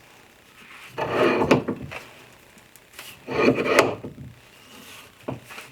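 Leg vise being screwed closed to press a T-nut into a wooden knob: two scraping, grinding strokes about a second long each, a couple of seconds apart, as the vise screw turns and the jaws bear on the wood.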